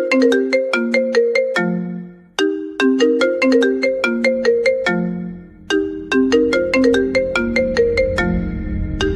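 iPhone ringtone playing: a short melody of quick, bell-like struck notes that repeats about every three seconds, with a brief dip between repeats. Near the end a low steady bass swells in under it.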